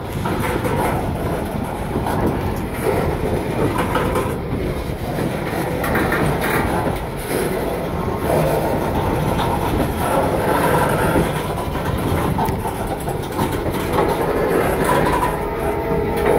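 Loaded CSX coal hopper cars rolling past close by: a steady rumble of steel wheels on rail, with a continual clatter of clacks as the wheels cross the rail joints.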